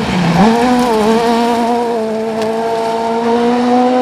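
Ford Fiesta rally car's engine at speed. Its pitch dips sharply just after the start as the car turns through the corner, climbs back within about a second, and then holds a steady note as the car drives away.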